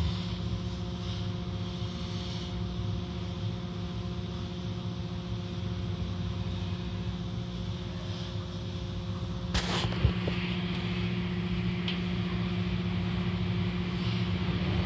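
Automatic car wash heard from inside the car: a steady machinery hum with several held tones under the hiss of water spraying and cloth strips sweeping over the car. A sudden burst of spray or slapping noise about nine and a half seconds in, with a sharp knock just after.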